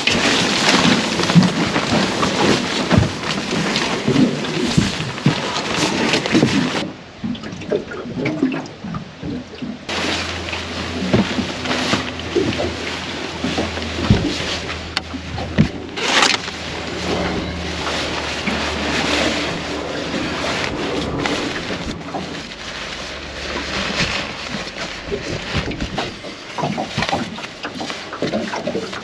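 Wind and water noise around the boat, with scattered knocks and rustles as gear is handled; a faint steady low hum comes in partway through.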